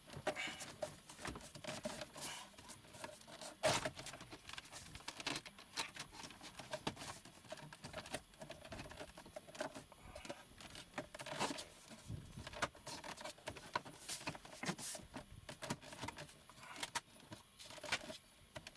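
Plastic dashboard trim being worked and pressed into place around a car stereo: a run of clicks, knocks and rattles, the loudest knock about four seconds in.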